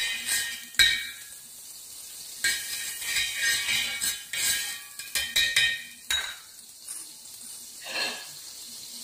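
A knife scraping and clinking against a hot cast-iron dosa griddle as it spreads melting butter, in many quick strokes for about six seconds, then once more near the end. The butter sizzles throughout.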